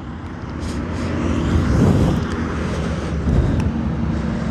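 Yamaha R15 V3's 155 cc single-cylinder engine running through its stock exhaust, growing louder over the first two seconds with small swells near two seconds and again just after three.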